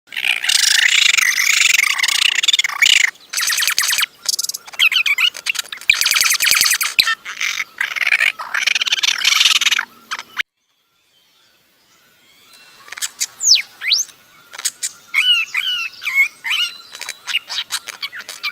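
Bird calls: a dense, high-pitched chirping chatter that cuts off suddenly about ten seconds in. After a short silence come separate chirps and quick whistled glides, mixed with sharp clicks.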